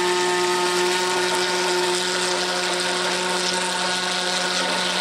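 White corded immersion blender running at a steady speed, with a constant motor whine, as it blends beaten eggs and sour cream in a stainless steel bowl.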